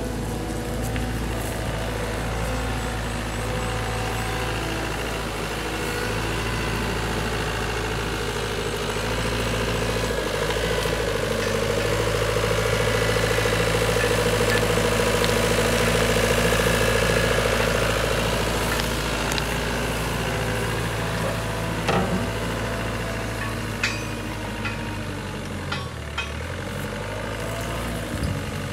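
Caterpillar 906H compact wheel loader's diesel engine running as the machine drives over rough grass, growing louder in the middle and easing off again. A few short sharp knocks come near the end.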